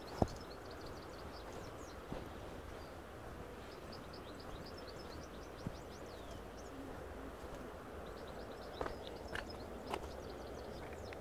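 Small songbirds chirping and singing in quick high notes over a steady low outdoor background noise, with a few footsteps on a gravel path near the end.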